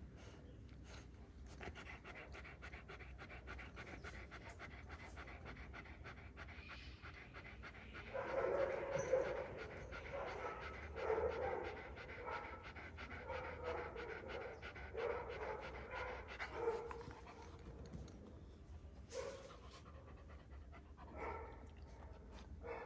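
A young Kangal dog panting rapidly, getting louder through the middle of the stretch.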